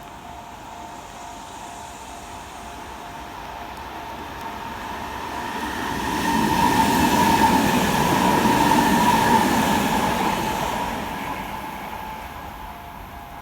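Kintetsu Minami-Osaka Line electric train passing over a level crossing: the rumble of its wheels on the rails grows over the first few seconds, is loudest around the middle, then fades away. Steady ringing tones from the crossing's warning bells carry on underneath.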